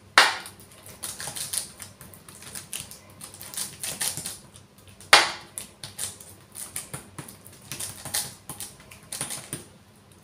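Metal spoon scraping and tapping on a parchment-lined baking sheet while spreading a sticky almond-flake Florentine mixture flat, in irregular clicks and scrapes. Two sharper knocks stand out, one just after the start and one about five seconds in.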